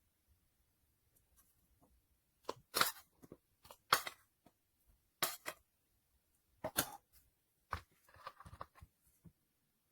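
A few sharp clicks and cracks, one every second or so, followed by a brief crackling rustle near the end, as of something being handled. No motor runs.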